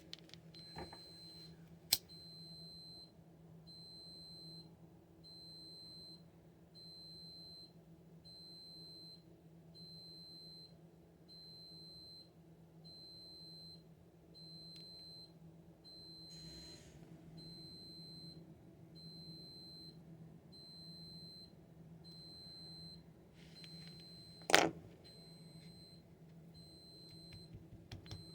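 A high electronic beep repeating about once a second, steady throughout, over a low steady hum. A sharp click about two seconds in and a louder click near the end.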